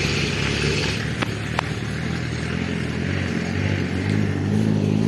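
A motor vehicle engine running steadily, with a low hum and a couple of faint clicks about a second in.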